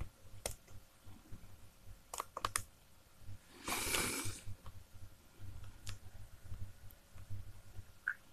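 Faint, sharp clicks from a laptop as a file is opened: a single click, then a quick cluster of three about two seconds in, another near six seconds, and a short rustling hiss about four seconds in.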